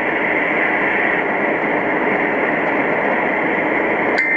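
Steady hiss of radio static from a broadcast receiver on an open channel carrying no speech. Near the end, a click and a short high steady tone come in.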